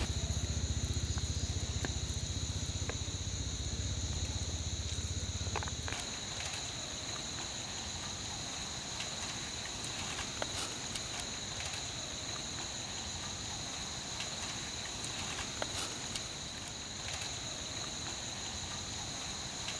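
Steady insect chorus, a high, even drone with two sustained pitches, with a low rumble underneath for the first six seconds or so that then drops away, and a few faint ticks.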